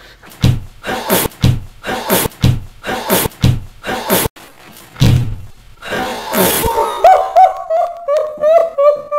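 A run of sharp, heavy thumps about two a second, then one heavier thump, followed near the end by a high, wavering pitched sound.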